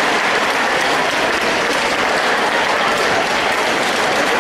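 Large audience applauding steadily in a big sports hall.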